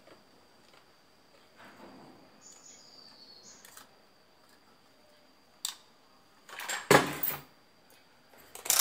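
Faint handling and clicks at a soldering bench while wires are soldered to a circuit board, then a loud clatter about seven seconds in as the soldering gun and multimeter are moved about on the bench.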